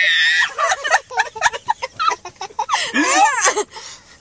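People shrieking and squealing playfully in a car: a high squeal at the start, choppy yelps, then a run of rising-and-falling cries about three seconds in.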